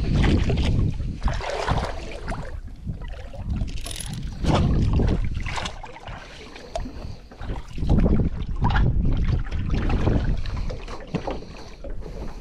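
Wind buffeting the microphone in gusts, with scattered clinks and knocks from an anchor chain and water sloshing as someone wades in shallow water handling the anchor of a small aluminium boat.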